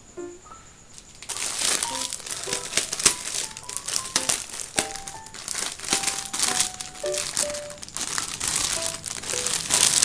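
Clear plastic wrapping crinkling and rustling as hands work a laptop sleeve out of its bag. It starts about a second in, a dense run of close crackles.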